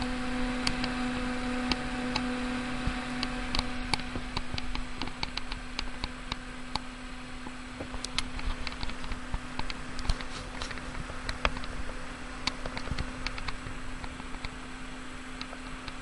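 Scythe Ultra Kaze 3000 RPM 120 x 38 mm sleeve-bearing case fan running wide open at 12 volts: a strong rush of air over a steady hum. Scattered light clicks run through it, and it gets slightly softer after about five seconds.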